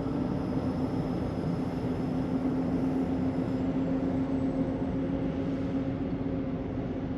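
Truck running steadily: a constant engine hum over low road rumble.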